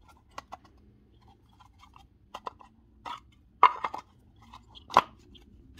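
Plastic clicks and clacks of an opened power-tool battery pack, its cell block and casing being handled and turned over, with two louder knocks about three and a half and five seconds in.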